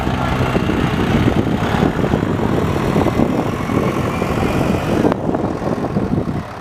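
An engine's steady hum fades out about half a second in, leaving a rough, rumbling noise with one sharp click about five seconds in.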